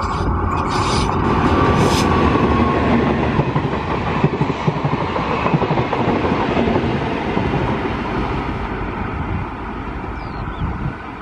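Electric-locomotive-hauled passenger train passing close at speed, its wheels clattering over the rail joints with a dense rumble and rush. The sound eases off over the last few seconds as the coaches go by.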